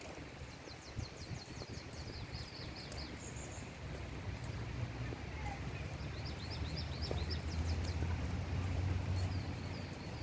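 A small songbird sings two quick series of high repeated notes, one at the start and one about halfway through, over a steady hiss of rain. A low rumble builds in the second half.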